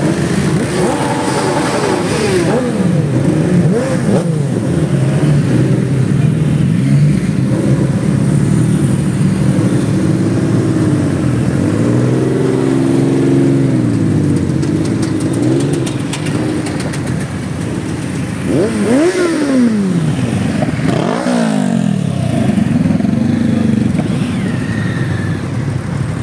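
A column of motorcycles riding past one after another, several engines running at once and revving up and down as the bikes pass.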